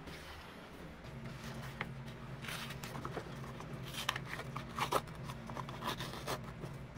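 Gable tops of paperboard milk cartons pried open by gloved hands: the sealed coated paperboard crackles and tears in short bursts. A steady low hum runs underneath from about a second in.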